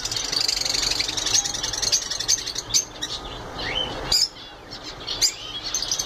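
Budgerigars chattering: a dense, high warbling chirp with several sharp squawks scattered through it, dipping quieter for about a second past the middle.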